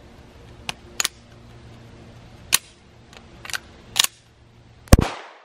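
Semi-automatic handgun being cleared of a double feed by the magazine-rip method: about half a dozen sharp metallic clicks and clacks over four seconds as the magazine is torn out, the slide racked and a fresh magazine seated. Near the end comes one much louder sharp crack with a ringing tail.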